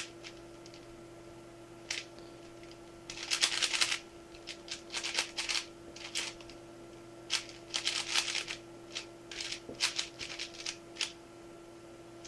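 4x4 speed cube being turned quickly by hand: quick bursts of plastic clicking and clattering as its layers turn, with brief pauses between runs of moves.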